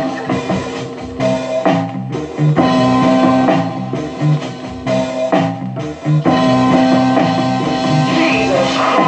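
Rock music with guitar and drums, played from a record through a hi-fi amplifier set to its phono input.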